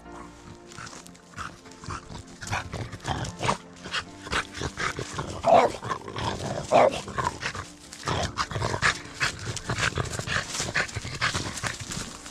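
French bulldog making a quick run of short barks and grunts, with two louder barks about halfway through.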